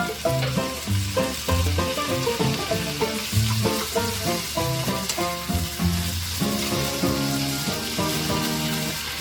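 Food sizzling as it fries in a pan, a steady hiss, under background music of short plucked-sounding notes.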